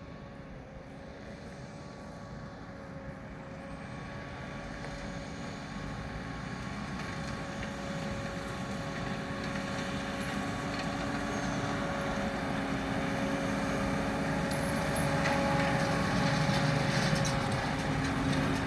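New Holland T7 245 tractor pulling a round baler through straw, running with a steady mechanical hum that grows louder as the machine comes closer.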